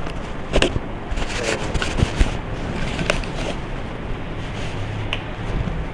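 Steady background hiss and low rumble, with a few sharp clicks and knocks scattered through it, the loudest about two seconds in.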